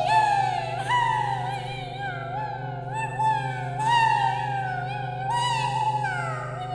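Theremin-like electronic tones: a string of high swooping notes, each jumping up and then gliding down in pitch, over a steady low hum.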